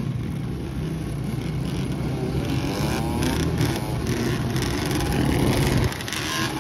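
ATV and dirt bike engines running together, among them a Yamaha Blaster's single-cylinder two-stroke bored out to 260cc. From about halfway an engine revs up with rising pitch several times.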